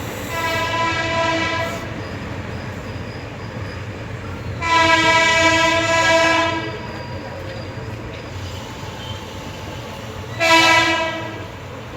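WAP-7 electric locomotive's horn sounding three times, heard from aboard the train. There is a blast of about a second and a half near the start, a longer and louder one of about two seconds in the middle, and a short one near the end, over the steady low rumble of the moving train.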